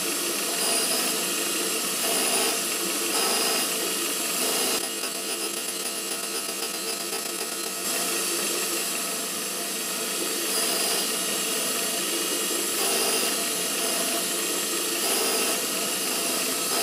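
Surface grinder wheel running and grinding the faces of two steel tool-post locking plates on the magnetic chuck, taking a fine cut, as the table traverses back and forth. A steady grinding noise with a faint pattern that repeats every two to three seconds.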